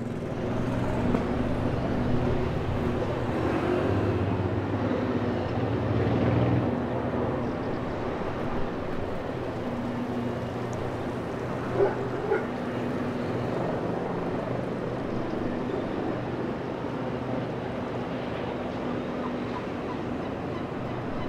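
Royal Navy AW159 Wildcat helicopter heard at a distance, its rotors and twin turbines making a steady drone with a low hum, a little louder early on. A few brief knocks come about halfway through.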